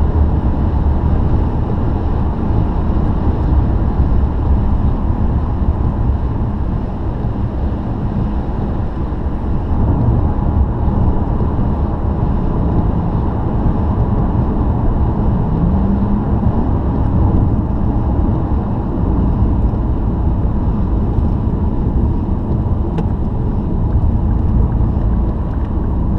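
Steady road and engine rumble heard from inside a car cruising at motorway speed on a wet road.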